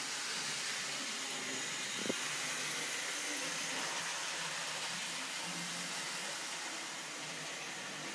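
Model GWR Lord of the Isles locomotive running on the layout's track: a steady whirring hiss from its small electric motor and wheels on the rails, with one sharp click about two seconds in.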